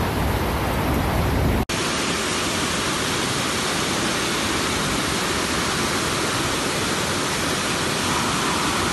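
Floodwater rushing down a street in a fast torrent around parked cars, a steady even rushing noise. A little under two seconds in the sound breaks off for an instant and resumes as a thinner, more even rush.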